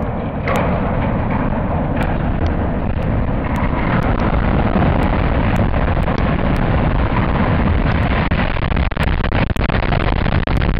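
Continuous loud rumble and crashing of a steel-and-concrete stadium upper-deck section collapsing, with sharp cracks of debris striking near the end.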